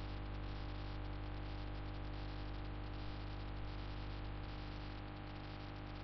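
Steady background hiss with a low electrical hum made of several steady tones, unchanging throughout; no distinct clicks or other events stand out.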